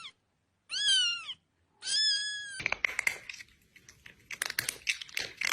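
A cat meowing twice: the first call rises and then falls, and the second is held at a steady pitch. A patter of irregular clicks and crackling follows.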